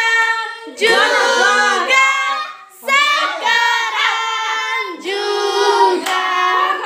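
Children singing a birthday song together, in phrases with short breaks for breath.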